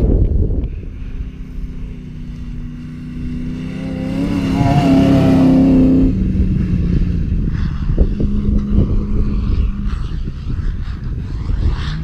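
Comp safari 4x4 race vehicle's engine driving past, growing louder to a peak about five seconds in; its pitch drops as it goes by, and it fades as it heads away. Wind rumbles on the microphone at the start.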